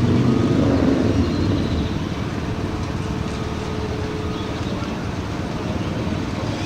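Engine-driven generator running steadily at a track work site, a continuous mechanical drone with a faint even hum.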